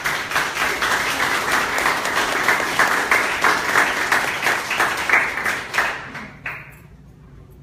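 A small audience applauding: many hands clapping together, with one loud clap at the start, the clapping dying away about six seconds in.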